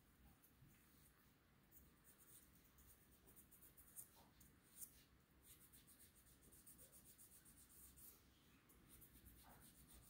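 Very faint, scratchy rubbing with two light clicks about four and five seconds in, from fingers handling a small digital watch's metal case and strap.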